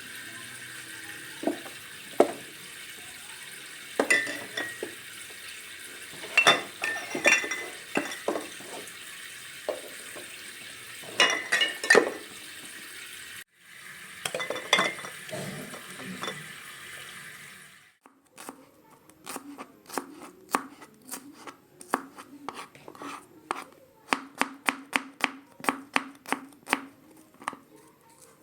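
Kitchen tap running while dishes and utensils clink against each other in the sink. The water stops about two-thirds of the way in, and a knife then chops on a cutting board in a quick, even rhythm of about three cuts a second.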